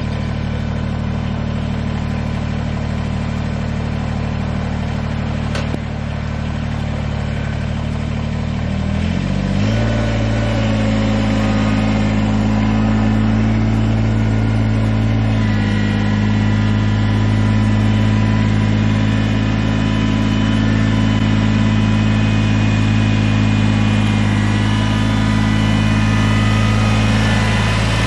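Kubota BX2380 sub-compact tractor's three-cylinder diesel engine running steadily. About nine seconds in it revs up, then holds at the higher engine speed.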